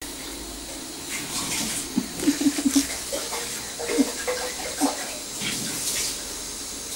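A cat licking its fur, with wet tongue strokes; a quick run of several licks comes about two seconds in, then single licks.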